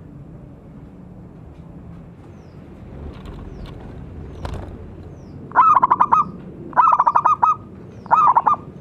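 Zebra dove (perkutut) calling: after a few seconds of faint background, three quick bursts of rapid staccato cooing notes come in the second half, about a second apart.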